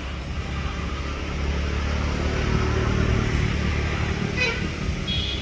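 Low, steady rumble of a motor vehicle's engine running close by, growing a little louder through the middle, with a couple of short high tones near the end.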